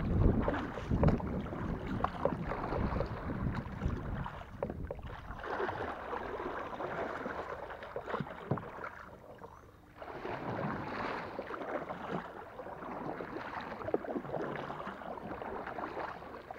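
Kayak being paddled hard: paddle blades dipping and splashing in the water, with wind on the microphone and a short lull about ten seconds in.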